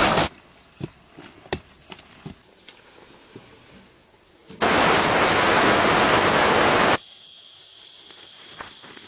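Soil pouring out of a tipped wheelbarrow: a loud, even rush lasting about two seconds, starting and stopping abruptly, after a few light knocks. Insects then buzz steadily in high tones near the end.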